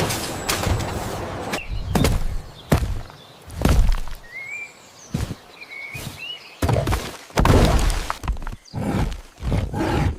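A series of dull thuds and knocks, irregularly spaced, with a few short rising bird chirps between them about four to six seconds in.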